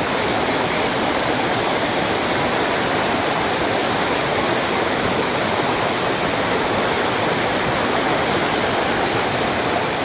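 Mountain stream water rushing, a steady, even noise that does not change.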